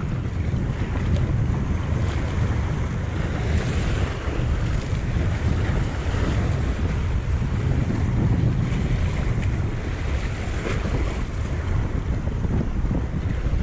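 Wind buffeting a chest-mounted GoPro Hero 7 Black's microphone while cycling, a steady low rumble with a fainter hiss above it.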